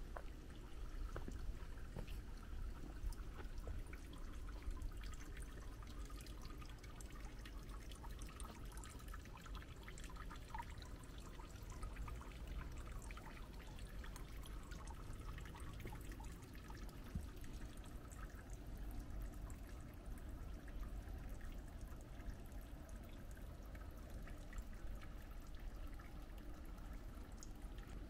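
Water trickling and dripping into a small pond, a steady trickle with many small drips.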